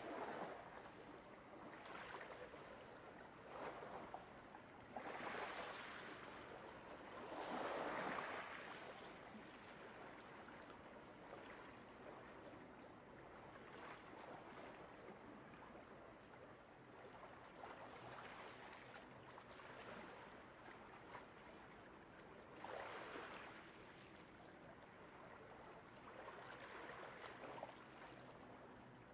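Faint small waves lapping and washing against shoreline rocks, in soft swells every few seconds.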